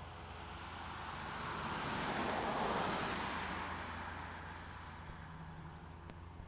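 Airbus A320 jet airliner taxiing past, the rushing noise of its engines swelling to a peak about two and a half seconds in and then fading. Crickets chirp steadily in the second half.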